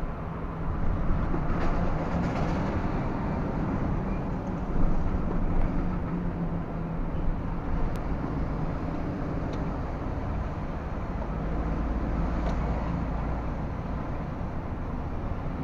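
Inside the cab of a MAN TGS 33.480 heavy-haul prime mover on the move: its diesel engine drones steadily under road noise, with a few light clicks from the cab, the sharpest about eight seconds in.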